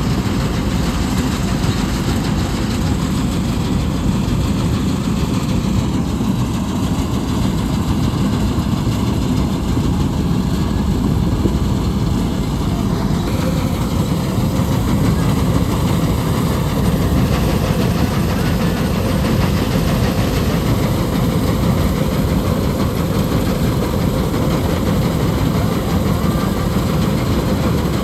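Balkar 654 combine harvester's engine running steadily at an even, constant speed.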